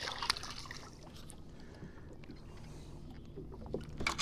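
A small hooked bass splashing at the water's surface beside a boat for the first moment, then low water noise, with a few short knocks about four seconds in as the fish is swung aboard.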